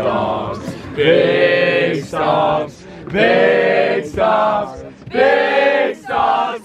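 A group of young men and women chanting together in unison: a long held shout followed by a short one, repeated three times about every two seconds.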